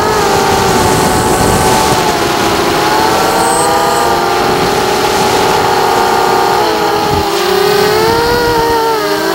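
FPV quadcopter's electric motors whining in flight, several close pitches wavering up and down with the throttle, over a low rush of wind. Around seven seconds in, the pitches dip and climb again.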